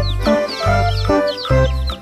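Upbeat children's background music: a bass note repeating about every half second under short, bright high notes that fall in pitch.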